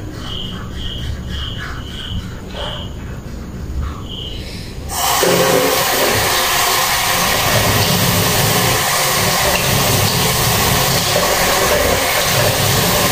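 Repeated short high chirps, about two a second, over a low hum; then about five seconds in a restroom sink tap is turned on and water runs hard and steadily into the basin.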